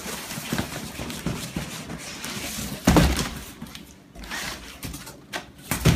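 Cardboard shipping boxes being handled: scraping and rustling of cardboard, with a loud thunk about three seconds in and another near the end as the box holding the telescope is lifted out and set down on the floor.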